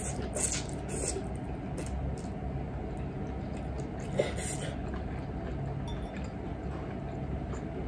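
Spaghetti slurped into the mouth in a few short sucks, then chewing, with a fork clinking once against a ceramic plate about four seconds in. A steady low hum runs underneath.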